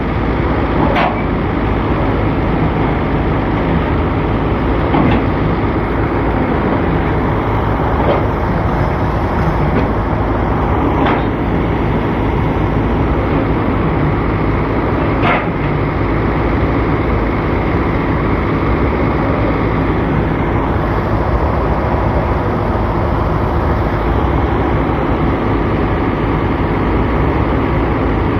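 Excavator engine running steadily under load, with a few brief sharp clicks or squeaks in the first half.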